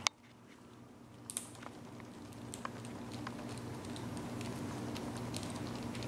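Monk parakeet gnawing on a plastic pen: faint, scattered small clicks and crackles over a low steady room hum, after a single sharp click right at the start.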